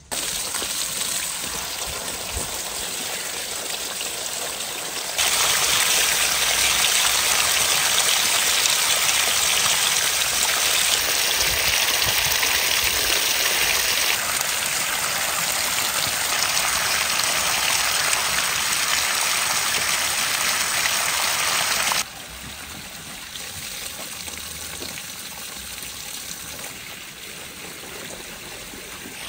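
Running water pouring and splashing onto vegetables in metal colanders as carrots and beets are rinsed. A steady rush that gets louder about five seconds in and quieter after about 22 seconds.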